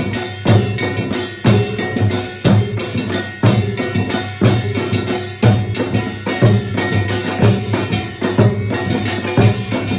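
Samulnori percussion ensemble playing: janggu hourglass drums and a buk barrel drum beat a steady rhythm with a heavy accented stroke about once a second and lighter strokes between, over the bright ringing of a kkwaenggwari small gong.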